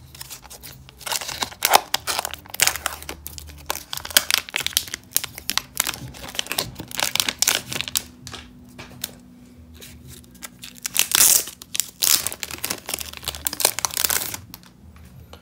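A trading card pack wrapper being torn open and crinkled, along with cards in plastic holders being handled. It sounds as an irregular run of crackling, rustling strokes, with louder bursts near the start and again near the end.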